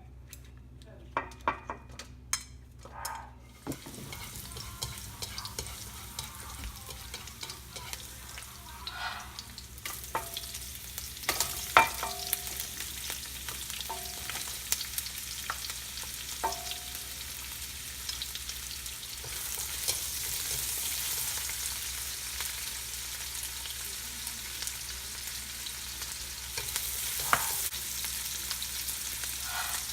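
Food sizzling as it is stir-fried in a hot pan, the sizzle setting in about four seconds in after a few sharp clinks. A utensil clinks and scrapes against the pan throughout as the food is stirred.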